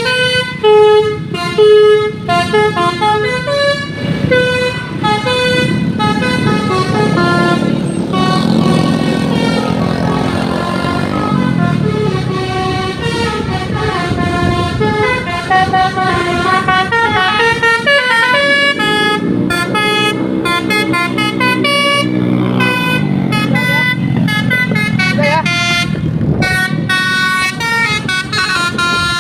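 Telolet multi-tone vehicle horn playing a continuous melody of fast-changing notes, several pitches sounding at once, with a vehicle engine running underneath.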